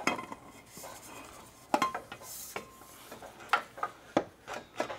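Irregular sharp metallic clinks and knocks as a BMW X3 E83 drive shaft is wiggled and worked down from the underside of the car, its rear end still stuck. Several knocks fall close together near the end.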